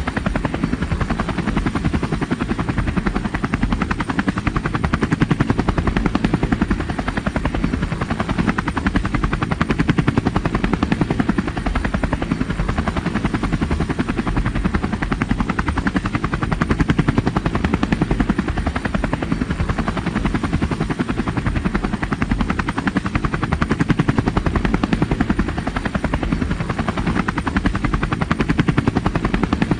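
A machine running steadily, with a fast, even pulsing and a heavy low-pitched sound.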